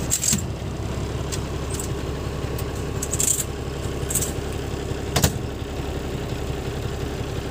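Truck's diesel engine idling steadily just after a cold start, the temperature gauge still at zero, heard from inside the cab. Several short clicks and jingling rattles come now and then over the drone.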